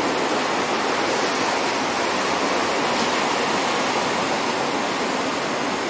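Ocean surf breaking and washing ashore, a steady rushing noise.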